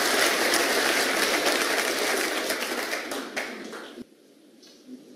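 Snooker audience applauding a pot, the clapping thinning out and then cutting off abruptly about four seconds in. A single light tap follows about a second later.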